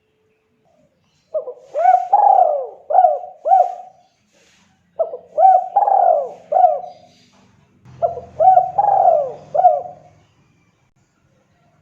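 Spotted dove (tekukur) cooing: three phrases of four or five quick arching coos each, repeated about every three and a half seconds.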